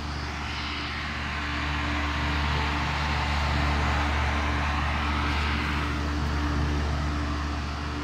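Old Lennox outdoor air-conditioner condenser unit running in cooling mode, still working fine: a steady low hum under the rush of air from its four-blade top fan. The air rush swells in the middle and eases off near the end.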